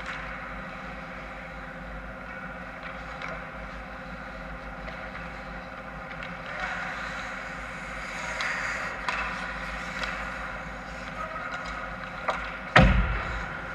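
Ice hockey play in an indoor rink: a steady hum with scattered scrapes and clicks of skates and sticks on the ice. Near the end, a small click and then a sharp, loud knock as play reaches the front of the goal.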